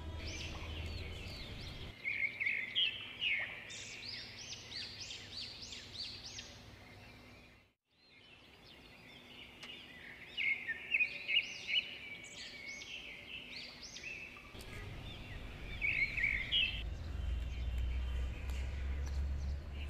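Small birds chirping and twittering in quick, high notes, in two long runs broken by a brief drop to silence about eight seconds in. A low rumble comes under them in the last few seconds.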